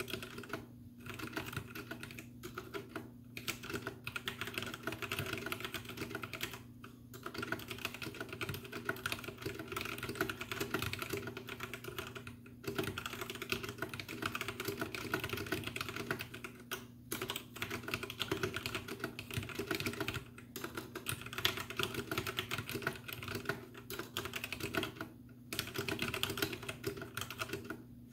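Steady fast typing on a Royal Kludge RK84 mechanical keyboard with stock RK Brown tactile switches, lightly lubed stabilizers and double-shot ABS keycaps, heard through a camera microphone. The typing stops for a moment several times.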